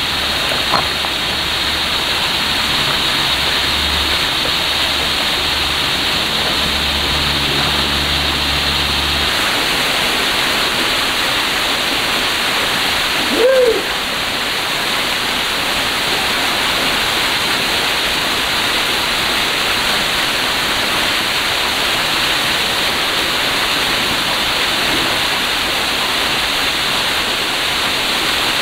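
Steady rushing of creek water spilling over rocks in a small cascade. A low rumble runs for the first nine seconds, and a short rising-and-falling call is heard about halfway through.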